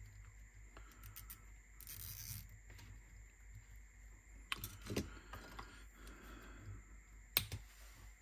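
Faint handling of nylon zip ties on the deck's wiring: a short zipping rasp about two seconds in, then a few sharp clicks near the middle and again near the end, over a low steady hum.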